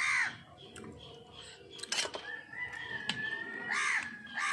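Crow cawing: one harsh caw at the start and two more near the end. A thin steady high whistle runs through the second half, and a single sharp click sounds about two seconds in.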